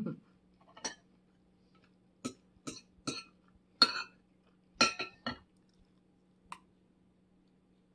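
Metal spoon and fork clinking against a dish while scooping rice and shrimp: about eight light, uneven clinks with a short ring, the loudest around the middle.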